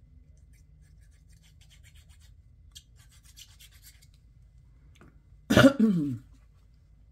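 Faint scratching and rubbing of paper as a glue pen is worked over a small paper piece, then about five and a half seconds in a person gives one short, loud cough that trails off falling in pitch.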